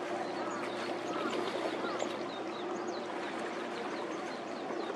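Waterfront ambience: a steady low hum under a wash of noise, with birds chirping and calling repeatedly.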